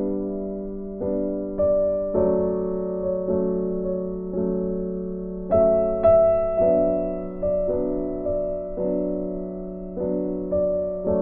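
Gentle background piano music, with notes struck every half second or so and left to ring and fade.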